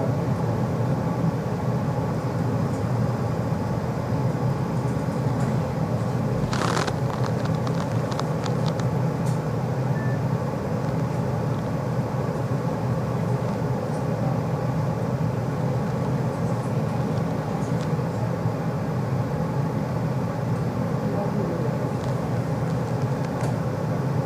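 Tram running along the line, heard from inside the car: a steady low rumble, with a sharp clack and a few rattles about six and a half seconds in.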